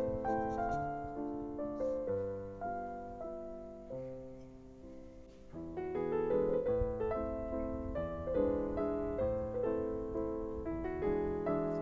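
Background piano music: a gentle melody over chords, thinning out briefly in the middle before fuller chords return.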